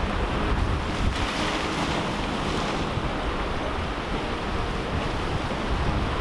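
Surf breaking and washing over the rocks of a jetty, swelling briefly about a second in, with strong wind rumbling on the microphone.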